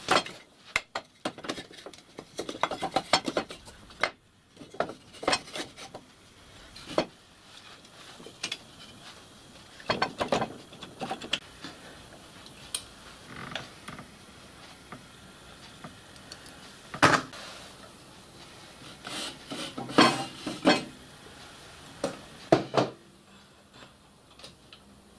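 Scattered metallic clinks, knocks and rattles of tools and small steel parts being handled while the axle-box keeper plates are taken off a miniature steam locomotive frame. The sharpest knocks come about two-thirds of the way through.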